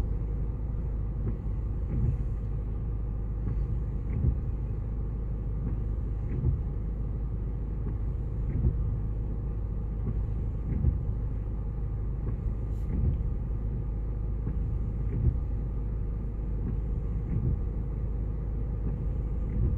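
A vehicle engine idling steadily, a low rumble heard from inside the cabin, with a soft thump about every two seconds.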